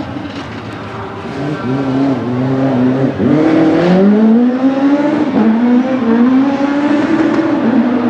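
Alfa Romeo MiTo RX Super 1600 rallycross car's naturally aspirated four-cylinder engine at racing revs. The revs drop sharply about three seconds in, then climb in a long rising sweep, followed by shorter rises with quick drops between them as it shifts up through the gears.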